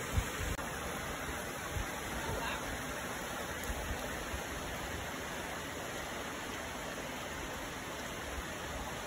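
Shallow stream running steadily over and between rocks, with a brief low thump near the start.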